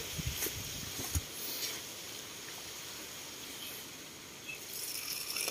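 Faint steady hiss with a few light clicks in the first two seconds, growing a little louder near the end.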